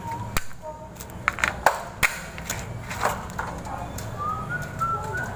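Sheet-metal fluorescent fixture housing being handled and fitted together: a series of sharp, separate knocks and clanks, over a steady low hum.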